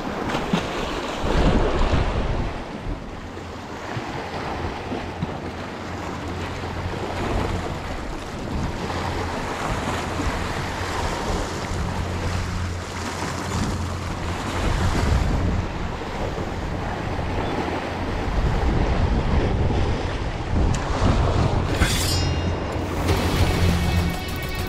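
Sea waves washing on the rocks, with wind buffeting the microphone. Under it runs a steady low hum that gets louder in the last few seconds.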